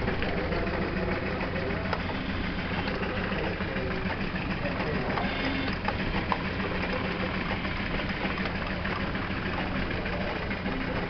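Steady mechanical running of a Jensen #20 toy machine shop's belt-driven overhead line shafting and model machines, a continuous low hum with a few light ticks, against background voices.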